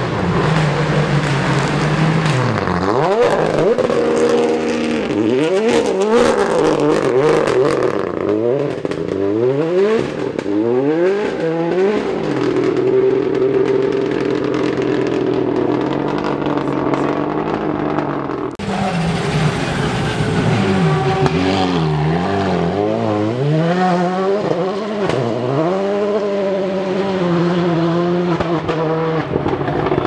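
Rally car engines at full throttle, the engine note climbing and dropping back again and again as the car accelerates and changes gear, with a run of sharp cracks about six to eight seconds in. After an abrupt change about eighteen seconds in, another rally car's engine revs up and down in repeated sweeps.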